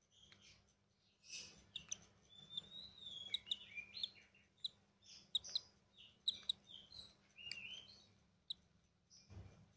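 Lovebird chicks chirping and squeaking in quick, irregular bursts, the begging calls of chicks being hand-fed, with a soft bump near the end.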